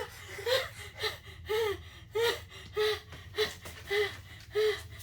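A woman panting hard, out of breath, each breath a short, high-pitched voiced gasp in a steady rhythm of nearly two a second.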